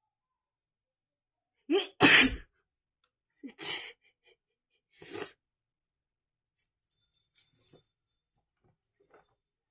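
A woman sneezes: a quick breath in and a loud sneeze about two seconds in, then two smaller sneezes about a second and a half apart. Faint small clicks follow near the end.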